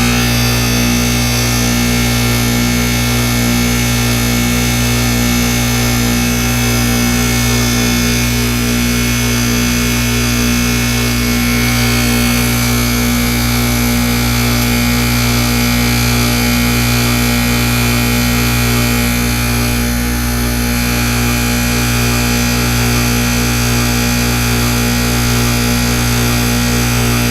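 Goodman heat pump outdoor unit in its defrost cycle: a steady compressor hum with an even hiss over it, as the iced coil is heated.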